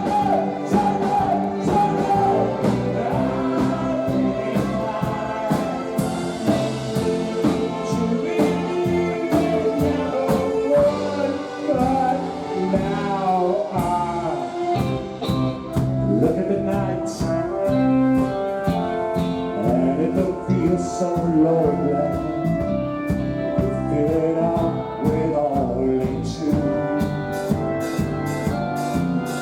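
Live rock band playing, with regular drum hits under a bending lead melody line.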